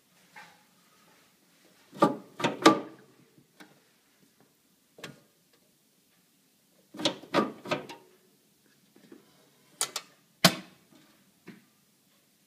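Sharp knocks and clatters in three quick clusters of about three strokes each: about two seconds in, around seven seconds in, and near the end.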